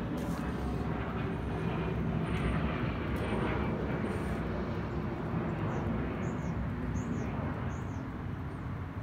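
A vehicle engine running, a steady low rumble.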